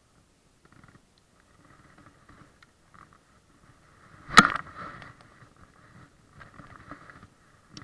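Handling noise on a body-worn camera as the angler casts a fishing rod: scattered rustling and scraping of the jacket sleeve, with one sharp loud knock about four and a half seconds in.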